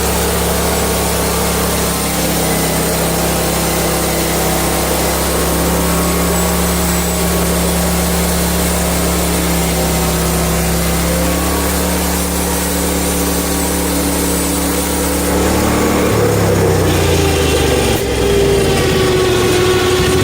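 Small gasoline engine running at a steady speed; about three-quarters of the way through its pitch shifts and a higher tone joins in, as the engine changes speed.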